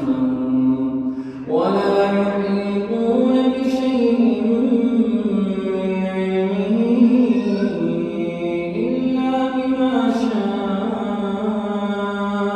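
A solo male voice reciting the Quran in the melodic tajweed style, drawing out long held notes that bend slowly in pitch, with a short pause for breath about a second in.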